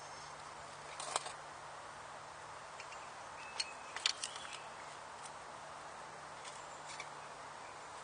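A survival knife blade works wood on a board: a few short, sharp scrapes and taps, the loudest about a second in and a cluster around four seconds in, over a steady quiet hiss.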